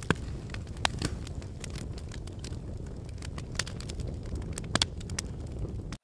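Burning-fire sound effect: a steady low rumble of flames with scattered crackles and a few sharper pops, cutting off suddenly at the end.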